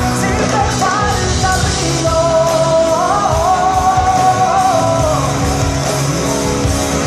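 Live Latin pop-rock band music, loud and steady, with drums, guitar and singing; a long wavering melody line is held over the band for a few seconds in the middle.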